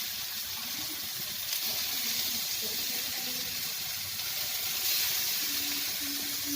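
Egg omelette with minced pork, carrot and onion frying in hot oil in a pan, sizzling steadily; the omelette has browned to a deep golden colour.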